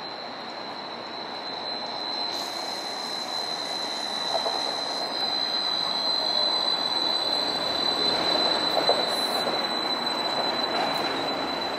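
Battery-electric Inekon Trio streetcar approaching and rolling past close by: the rumble of its wheels on the rails grows louder, under a steady high-pitched squeal that dips slightly in pitch near the end. There are a couple of sharp clicks along the way.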